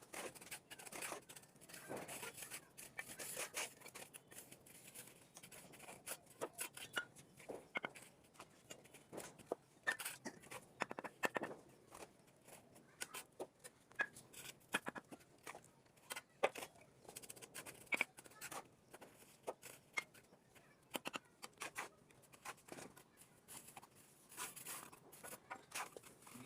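A mason's hand tool scraping and tapping mortar into the joints of a brick wall: faint, irregular short scrapes and clicks.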